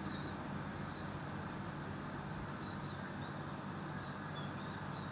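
Steady background hum of outdoor ambience, with a few faint, short high chirps now and then.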